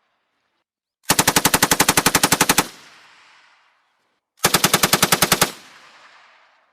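Machine gun firing two bursts at about ten rounds a second: a longer burst of roughly a second and a half, then a shorter one of about a second, each trailing off in a fading echo.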